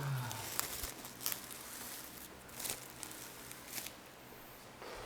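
Rustling and scraping of a parcel's packaging as it is handled, in several short swishes.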